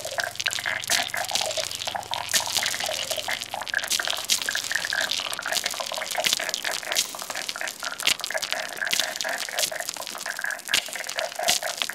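Electroacoustic noise improvisation: a dense stream of clicks and crackle over a steady hiss, made from pebbles rubbed and tapped on stone together with a blippoo box synthesizer and plate reverb. A faint low hum underneath fades out about halfway.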